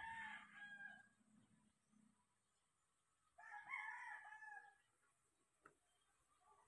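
Rooster crowing twice, faint: one crow at the very start and another about three and a half seconds in.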